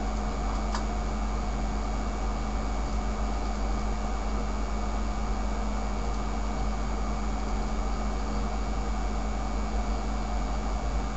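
Steady background hum and hiss with a low drone and a faint constant tone, unchanging throughout; a single faint click about a second in.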